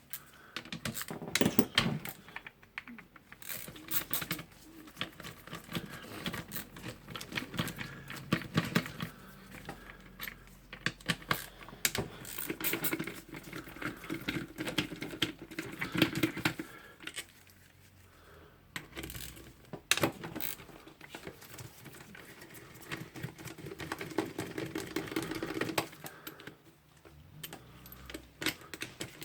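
Hand tool work on a Bosch GBH 11 DE rotary hammer's housing: an uneven run of clicks, taps and rattles as the four screws joining the motor housing to the hammer-mechanism housing are undone.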